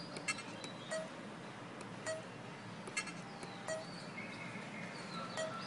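Keypad presses on a DigiMaster 3 handheld diagnostic tool: a run of sharp clicks roughly once a second, several with a short electronic beep, as its menus are stepped through.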